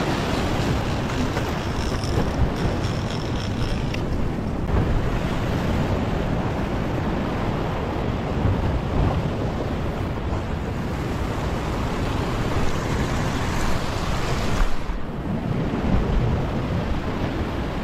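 Ocean surf breaking and washing over a rock platform, a steady rushing wash with wind buffeting the microphone.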